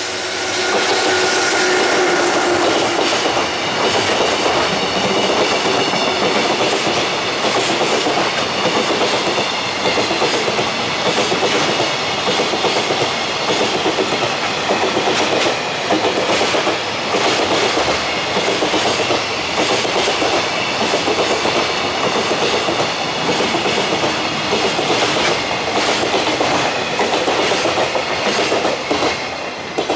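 Container flatcars of a departing freight train rolling past, their wheels clacking over rail joints in a steady rhythm. A whine fades out during the first few seconds. The sound falls away near the end as the last wagon goes by.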